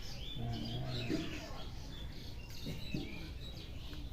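Birds chirping repeatedly in the background, with a brief low hum from a person's voice about half a second in.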